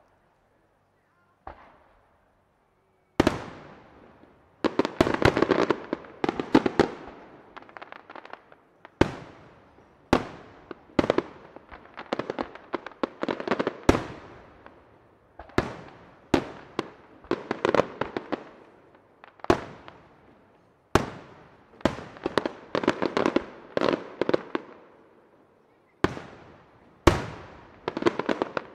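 Aerial firework shells bursting overhead one after another, each a sharp bang with a decaying rumble, some alone and some run together in quick volleys of reports.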